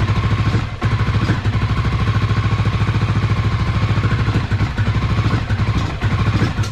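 Honda XR650L's air-cooled single-cylinder four-stroke engine running on choke with a steady pulsing beat, stumbling briefly about a second in and again near the end, then dying. It runs poorly on stale fuel, the carburettor fouled and the bike unwilling to rev.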